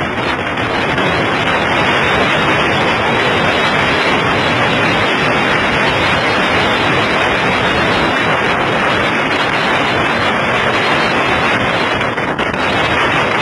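Steady, loud rush of wind blasting the microphone together with the water rushing past a speedboat running at high speed; no engine note stands out.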